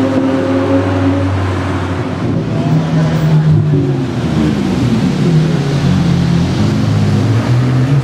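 Audi R8 V10's 5.2-litre V10 with an Akrapovic exhaust, running loud at low revs as the car drives slowly. The pitch holds steady at first, then changes about two and a half seconds in and wavers up and down with small throttle movements.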